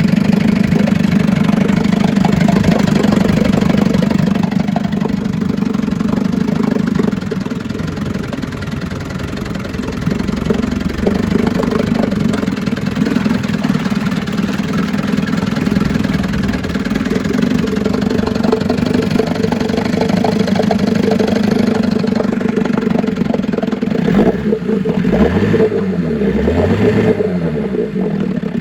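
1956 Scott-Atwater 10 hp Bail-A-Matic two-stroke outboard motor running on a test after a rebuild, on a heavy break-in oil mix. About seven seconds in it slows and quietens for a few seconds, then picks back up.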